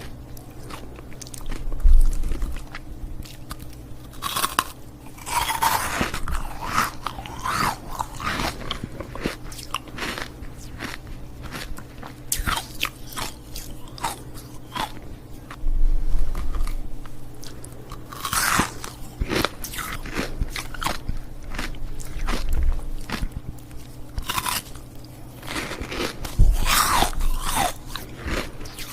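Ice cubes bitten and crunched between the teeth, then chewed, in repeated bursts of sharp cracking every few seconds with scattered smaller crackles in between.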